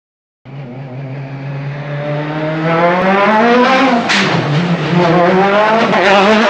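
Citroën DS3 WRC rally car's turbocharged 1.6-litre four-cylinder engine cutting in suddenly and revving higher as the car accelerates hard toward the microphone. About four seconds in there is a sharp crack and a quick drop in revs at a gear change, then the revs climb again as it passes close near the end.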